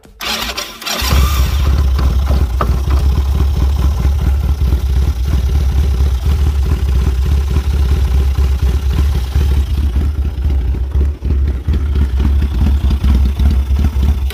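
Single-cylinder engine of a Chinese 250cc ATV running in neutral: a noisy first second, then a loud, steady idle. It runs basically only on full choke, a sign of its carburetor problems.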